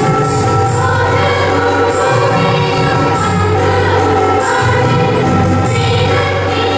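A women's group choir singing a Christmas carol in unison over amplified instrumental accompaniment, with sustained low bass notes and a steady beat of light percussion about twice a second.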